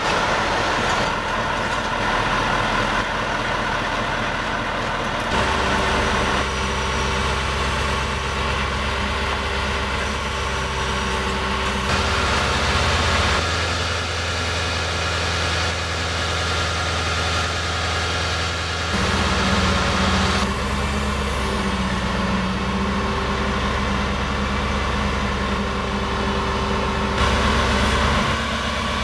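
KamAZ 43118 truck's V8 diesel engine running at a steady idle, the sound changing abruptly every few seconds.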